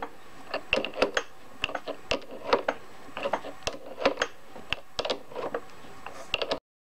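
Threading die turned by hand with an adjustable wrench to cut a 5/16 thread on a lathe: irregular sharp metallic clicks and clinks, a few a second, as the wrench is worked. The sound cuts off suddenly near the end.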